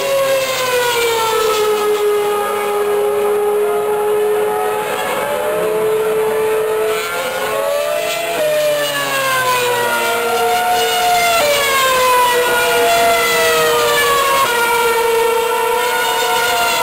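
Formula One cars' high-revving V8 engines whining through a corner, more than one engine note heard at once. The pitch sweeps down and back up, with sudden steps as the drivers change gear.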